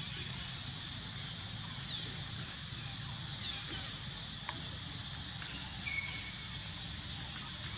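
Forest ambience: a steady high hiss over a low rumble, with a few faint short chirps and one brief whistle about six seconds in.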